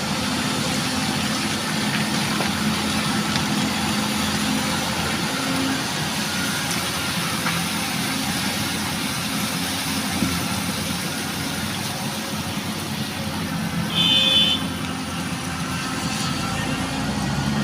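Excavator engine running steadily during loading work, with a short high-pitched beep near the end.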